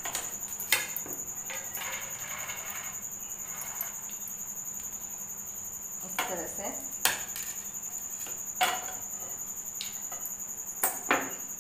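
Kitchen utensil handling: a pan with roasted peanuts is tipped onto a plate, then knocked back onto a gas stove burner, giving several sharp clacks of metal and a brief rattle of peanuts. A steady high-pitched chirring runs underneath.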